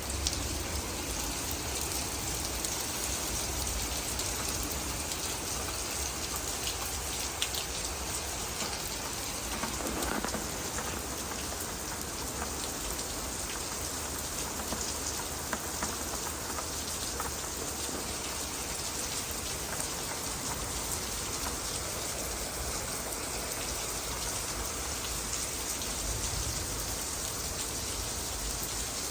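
Steady rain falling and pattering on surfaces, with scattered drop ticks.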